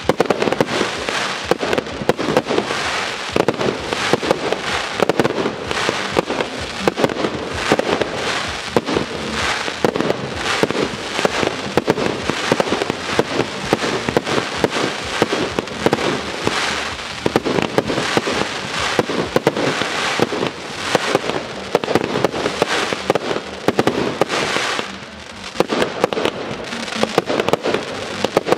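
Fireworks display: a dense, continuous barrage of shell bursts and crackling, with a short lull about 25 seconds in.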